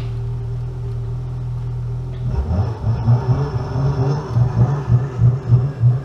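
Ski-Doo snowmobile engine running steadily at idle, then about two seconds in it revs up and pulls away, its sound rising and falling unevenly.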